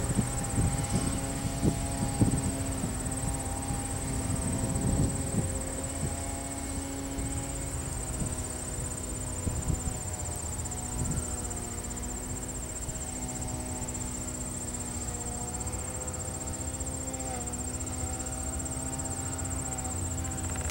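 Wheels of a freight train's loaded gondola cars clicking over rail joints as the train rolls away, loudest in the first few seconds, then easing off into a steady low hum. Insects buzz steadily at a high pitch throughout.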